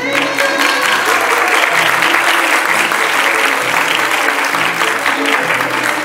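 Audience applause breaking out suddenly over background music and carrying on steadily.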